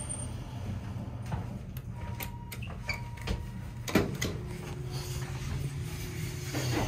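Dover traction elevator car with its doors open over a steady hum. Button clicks and a brief tone come through, then a sharper knock about four seconds in as the door-close button is pressed, after which a steady tone sets in as the doors work to close.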